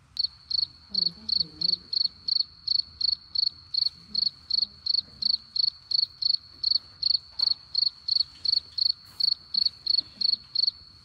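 Cricket chirping: one high, even chirp repeated about three times a second.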